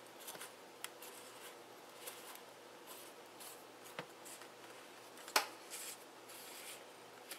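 Faint handling noises: light rustling and a few small sharp clicks of small parts being handled, the loudest click about five and a half seconds in, over a low steady room hiss.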